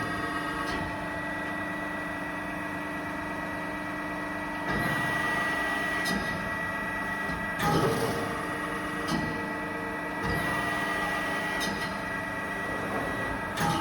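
AMADA HFBO 50 x 2000 CNC hydraulic press brake running: a steady hum with a constant whine, and a knock or short surge of louder noise every second or few, about five times.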